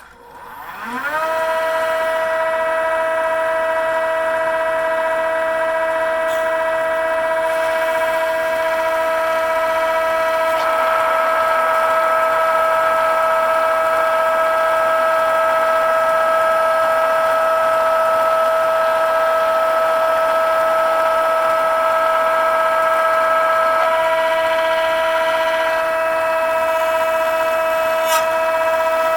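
Boyar Schultz profile grinder's high-speed spindle spinning up to a steady high whine within the first second or so. From about a third of the way in, a rough grinding hiss joins the whine as the diamond dresser nib cuts into the mounted stone to true it. The hiss drops away near the end.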